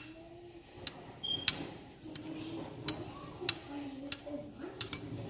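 Spoon stirring gelatin into mango pulp, tapping lightly against the bowl in irregular clinks about once or twice a second.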